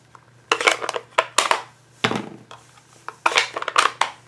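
Plastic stamping supplies being handled: a Stampin' Pad ink pad case is shut and set down with the clear acrylic stamp block on a wooden tabletop. The result is clusters of sharp plastic clacks and knocks about once a second.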